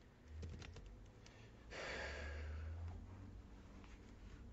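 Computer keyboard keystrokes, a few scattered clicks, with a breathy exhale lasting about a second, starting a little under two seconds in.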